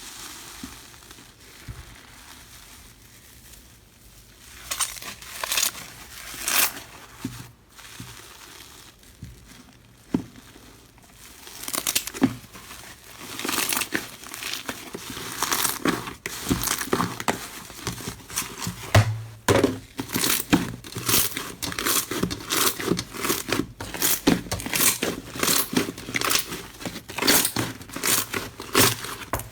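Slime being pressed and pulled by hand, giving crinkling, crackling sounds: a few scattered crackles at first, becoming a dense run of quick crackles from about halfway through.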